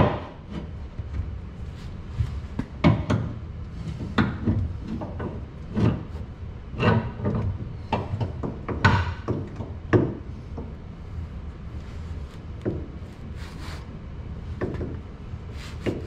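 Irregular metal clunks and knocks, some with a short ring, as a CV axle is worked by hand into the car's differential.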